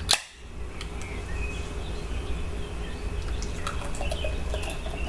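Aluminium beer can's pull tab cracking open with one sharp click, then a steady fizzing hiss with small crackles as the hazy IPA is poured into a glass and foams up.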